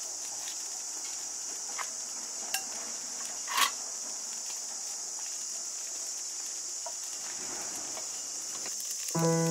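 Steady high-pitched insect drone, with a few faint clicks and one short, louder knock about three and a half seconds in. Piano music comes in near the end.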